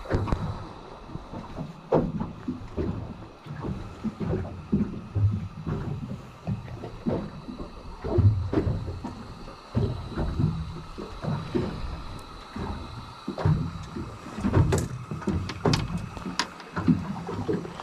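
Handling noise while a freshly caught crappie is held and unhooked close to the microphone: irregular low rumbling and bumps, with a few sharp clicks, twice near the end.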